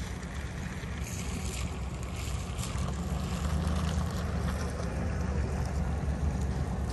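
Gusty wind from an approaching severe thunderstorm buffeting the microphone, a steady low rumble that grows a little louder about three seconds in.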